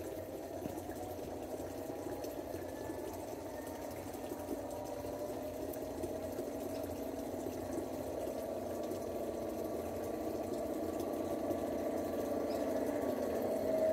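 Simulated EMD diesel engine sound from the Blunami sound decoder in a garden-scale model of a Clyde-built G8 locomotive, playing steadily through the model's speaker. It grows louder as the locomotive approaches, most of all near the end.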